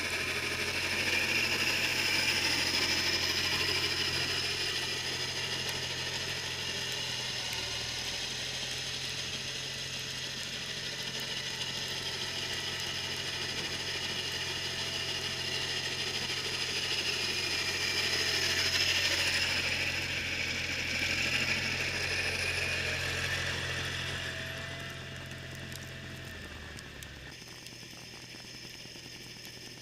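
John Deere 318 garden tractor running with its Model 49 front snowblower engaged: a steady engine drone under the rattling, whirring mechanism of the snowblower. Near the end the engine note drops away and the sound fades.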